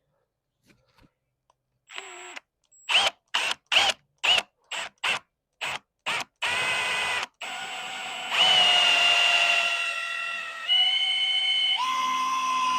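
Power drill driving a 7/8-inch hole saw into a door jamb to cut the center hole for a latch strike: a run of short trigger pulses, then running steadily, its whine stepping in pitch a few times.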